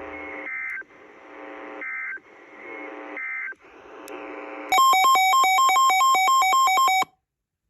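NOAA Weather Radio broadcast ending with three short warbling SAME end-of-message data bursts, about a second and a half apart, over radio hiss. About two-thirds of the way in, a much louder electronic alert takes over, rapidly alternating between two pitches for about two seconds, then cuts off abruptly.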